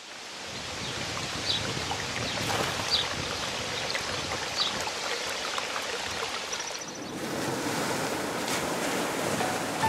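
Steady rushing water with a few short high chirps about every second and a half in the first half.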